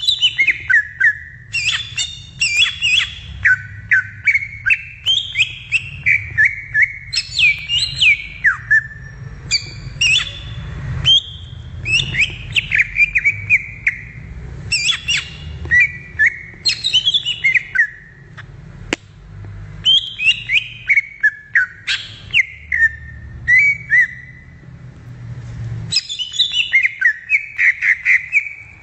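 Green leafbird (cucak ijo) singing: a continuous, fast stream of varied, high whistled notes, many sliding downward, broken by a few short pauses, over a low steady rumble.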